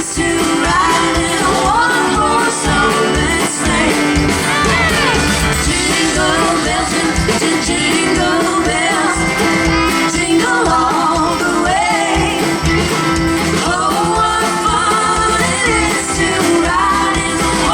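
Live band playing an upbeat song, with a woman singing over amplified instruments and a steady beat.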